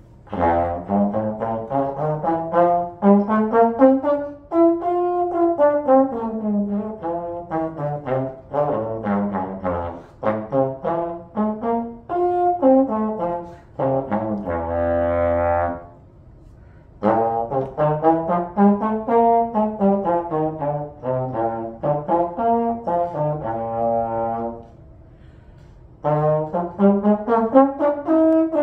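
Solo trombone playing quick runs of notes that climb and fall in pitch, in phrases broken by two short rests, with one long held note near the middle.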